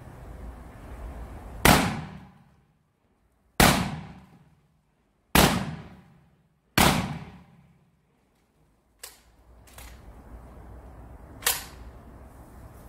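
Four shots from a 12-gauge shotgun, one to two seconds apart, each a sharp blast that dies away quickly. A few fainter sharp knocks follow, and one louder crack near the end.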